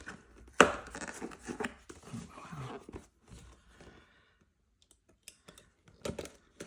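Cardboard box being handled and opened by hand: a sharp knock about half a second in, then rustling and scraping of the cardboard, a quiet spell, and a few light clicks near the end.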